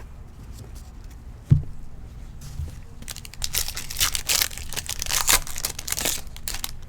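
A knock about a second and a half in, then a trading-card pack's wrapper being torn open and crinkled for about three seconds.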